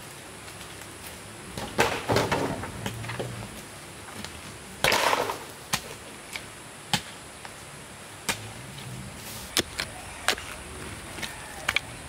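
Bamboo being chopped and handled with a blade: irregular sharp knocks, with two longer rasping bursts about two and five seconds in.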